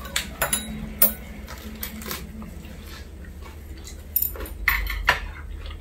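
Metal chopsticks and spoons clicking against ceramic bowls and plates while eating: a scattered handful of light clicks, with a few close together near the end.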